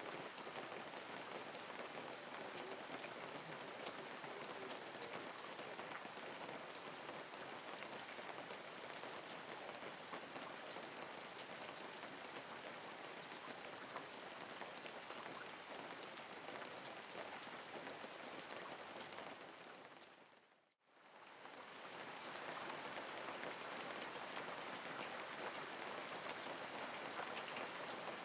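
Steady light rain falling. About two-thirds of the way through, the sound fades down to near silence and fades back in, like a loop joining.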